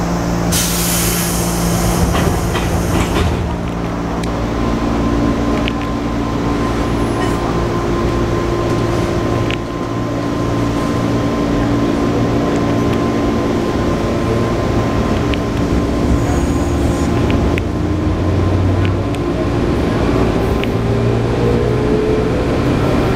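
Running noise inside a JR 205 series 1000-subseries electric train: the hum of its DC traction motors (field-added excitation control) over wheel-on-rail noise. A loud burst of hissing comes about half a second in and lasts a couple of seconds, and near the end the motor tone rises as the train picks up speed.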